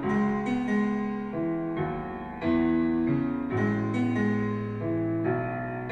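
Harman Kardon Citation 200 portable smart speaker playing a pop song's keyboard intro: sustained piano chords that change about once a second, starting abruptly.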